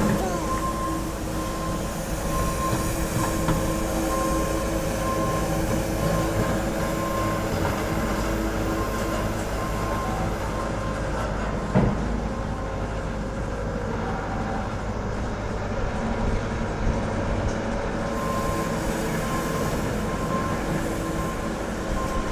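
Diesel engines of road-resurfacing machines (asphalt paver, skid-steer loader and road roller) running steadily. A beeper sounds in short repeated beeps for the first ten seconds and again near the end, and there is a single knock about twelve seconds in.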